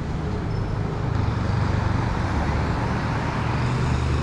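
Road traffic with a steady low engine rumble that grows a little louder about a second in.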